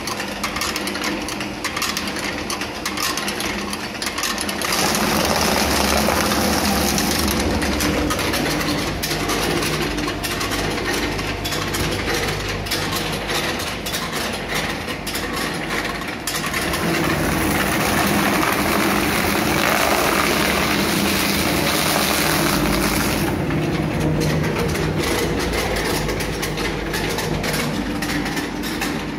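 Corrugated-box shredder with two electric motors running, its cutter shafts turning with a steady hum and rapid clatter. Through most of the middle it grows louder and noisier as cardboard is fed in and shredded.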